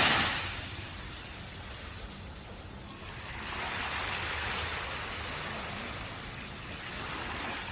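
Ocean waves washing on a beach: a wave's hiss dies away at the start, another, softer wave swells and fades about halfway through, and a small one rises near the end.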